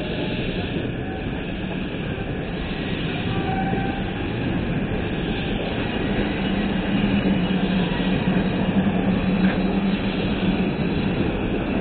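Passenger cars of a train rolling past at close range: a steady rumble of wheels on the rails, with a low hum that grows louder about halfway through.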